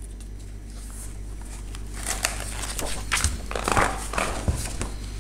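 Sketchbook pages being handled and turned: irregular paper rustling that starts about two seconds in, over a low steady hum.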